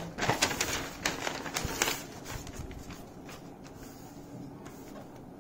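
Paper rustling as the pages of a ruled notebook are turned and the notebook is handled: a quick run of crackles and light clicks through the first two seconds, then only faint scattered ticks.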